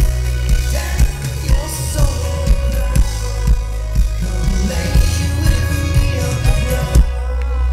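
Electropop band playing live through a festival PA, recorded from within the crowd: a steady kick drum about two beats a second under heavy bass, synths and a male lead voice singing. About seven seconds in the beat and upper parts drop out, leaving a low bass hum.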